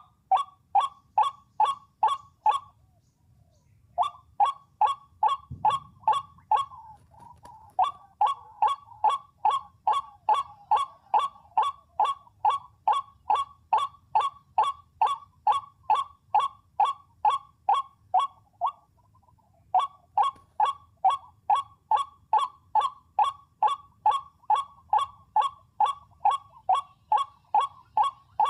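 White-breasted waterhen call: one harsh 'kwak' note repeated evenly about two and a half times a second, in long bouts, with brief pauses about three seconds in and near twenty seconds in.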